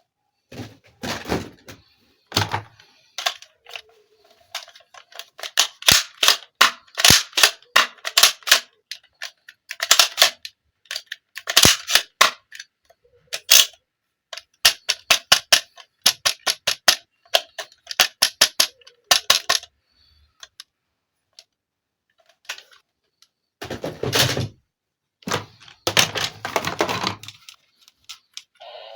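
Plastic toys being handled: quick runs of sharp plastic clicks and taps, then two longer scraping rustles near the end.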